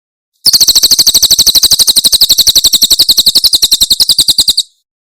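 Cililin songbird giving its 'tembakan' song: one long, very rapid high-pitched trill of sharp, evenly repeated notes, about a dozen a second. It starts about half a second in, lasts about four seconds, and stops suddenly.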